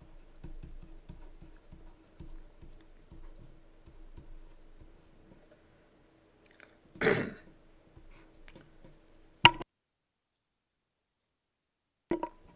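Marker pen writing on a white board, a run of faint, irregular scratching strokes over a low steady hum. A short vocal sound about seven seconds in. A sharp click about nine and a half seconds in, then dead silence for over two seconds until another click.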